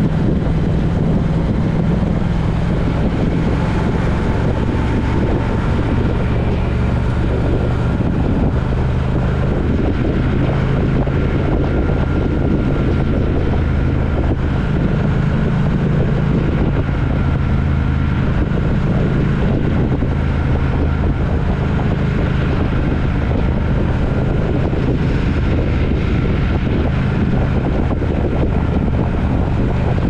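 Motorcycle engine running steadily at cruising speed, its low hum drifting slightly in pitch, with wind rushing over the handlebar-mounted camera's microphone.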